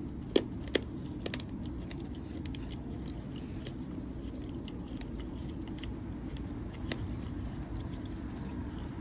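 Baseball cards from a 1987 Topps cello pack being handled: two light clicks in the first second, then faint scraping and ticks, over a steady low hum.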